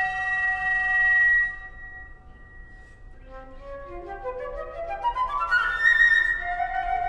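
Solo flute with live electronics: a held high note cuts off about a second and a half in, a softer tone fades away, then a run of overlapping notes climbs from low to high and settles into sustained tones near the end.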